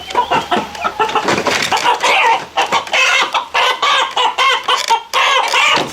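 Chicken clucking in a rapid, unbroken run of short calls: a rooster that has just been caught and is being handed over by hand.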